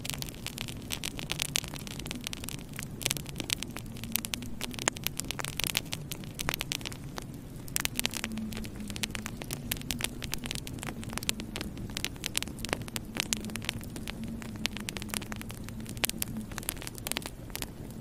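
Wood fire crackling in a fireplace: dense, irregular sharp pops and snaps throughout, over a steady low hum.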